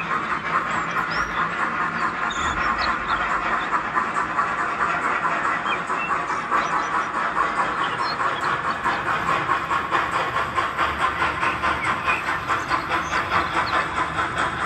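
Sound decoders in two H0 model steam locomotives, a ROCO ÖBB class 86 and a class 52 double-heading a freight train, playing steady rhythmic steam exhaust chuffing under load. Short bird chirps come through now and then.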